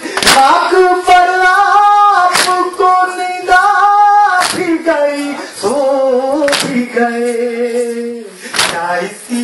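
Mourners chanting a noha in long, held notes, with loud unison chest-beating (matam) strikes about every two seconds, five in all.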